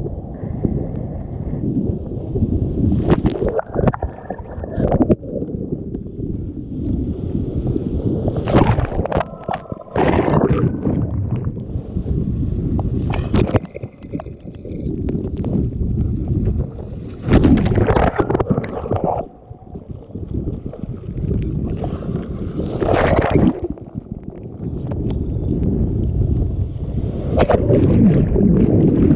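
Surf breaking over a kayak's bow and washing across its deck every few seconds as it is paddled out through the shore break, with a constant rumble of wind and water on the action camera's microphone as it is swamped and dunked.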